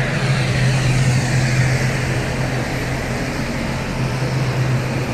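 Propeller drone and engine noise of a Bombardier DHC8-Q400 turboprop heard from inside the cabin after landing, a steady low hum with a whine slowly falling in pitch as the engines wind down.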